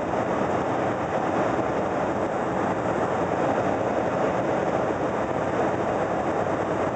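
Steady cabin noise of an airliner in flight: the jet engines and rushing airflow heard from inside the passenger cabin, an even, unbroken drone.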